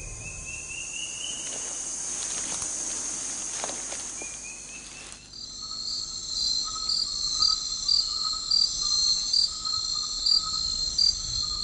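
Rainforest insect chorus. A steady high buzzing changes abruptly about five seconds in to a different pattern of high chirps pulsing about twice a second.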